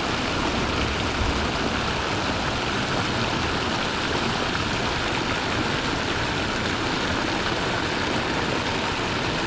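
Steady rush of fast-flowing, foaming creek water.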